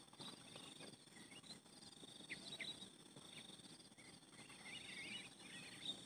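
Faint rural morning ambience: insects trilling steadily, with a few short bird chirps and a burst of small-bird twittering near the end. A few soft footsteps on dry ground in the first second.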